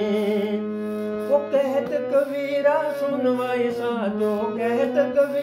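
A man singing a Hindi devotional bhajan over a steady low drone. He holds one long note for about the first second and a half, then sings a wavering melodic line.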